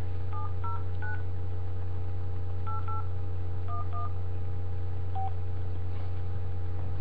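Telephone touch-tone keypad dialling: about eight short two-note beeps in quick clusters over the first five seconds, as a number is keyed in. A steady low hum runs underneath.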